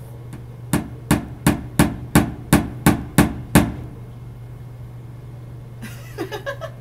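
Hammer tapping a nail into an office cubicle partition wall: nine quick, even strikes about three a second, then a few lighter knocks near the end.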